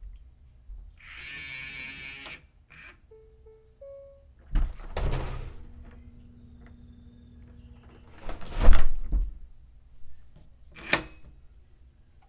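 Electronic keypad door lock operating: a buzzing whir about a second in, a few short electronic beeps, then heavy clunks of the lock and door around the middle and a sharp click near the end.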